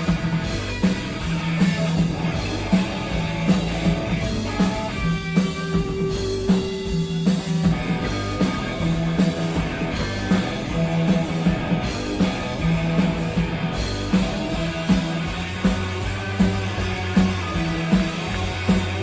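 Rock band playing live, electric guitar over bass and a steady drum-kit beat, with no vocals.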